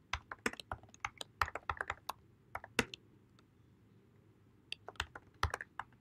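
Typing on a computer keyboard: quick runs of key clicks, a pause of about two seconds in the middle, then a last short run near the end.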